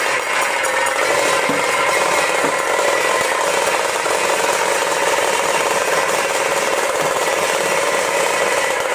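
Dhol drums beaten fast and without a break, a dense, steady clatter of strokes.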